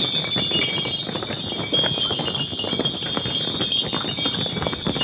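Harness bells on a string of mules and donkeys jingling steadily, over the clopping of their hooves on stone steps.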